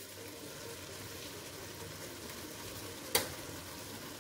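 Spinach, lettuce and spring onions sizzling steadily in olive oil in a stainless steel pot on high heat, with a single sharp knock about three seconds in.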